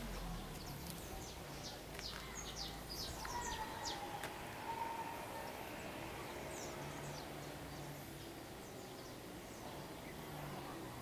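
Birds chirping in short, high, quick calls, thickest in the first few seconds and again briefly later, over a steady faint outdoor background hiss.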